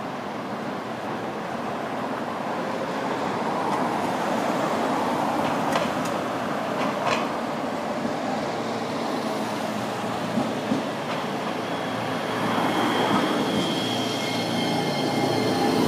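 Sapporo streetcar running on its rails: a steady rumble that grows louder, with a few sharp clicks as the wheels cross rail joints and a thin high whine near the end.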